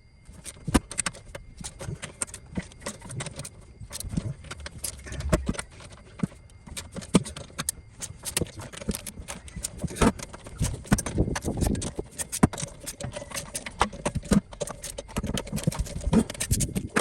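Ratchet wrench with a 17 mm socket clicking in runs, with metal knocks and clinks, as cylinder head nuts are undone.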